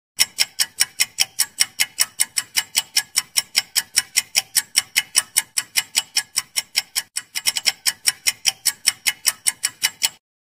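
Ticking-clock sound effect running with a ten-second countdown timer: rapid, even ticks, about six a second, with a brief stumble a little after seven seconds in, stopping abruptly when the count reaches ten.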